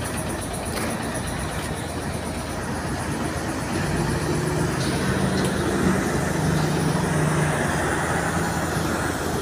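Heavy diesel engine of a Mercedes-Benz prime mover hauling a loaded low-loader, running over road traffic noise. Its low, steady hum grows louder about four seconds in as the truck approaches.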